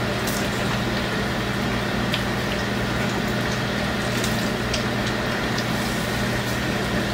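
Oreos deep-frying in a pan of hot oil: an even sizzle with a few small pops, over a steady low hum. The oil is running too hot, as the cooks say.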